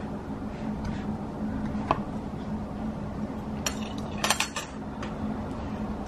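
Metal chopsticks clicking against each other and a ceramic plate: one click about two seconds in, then a quick cluster of clicks around four seconds in, over a steady low hum.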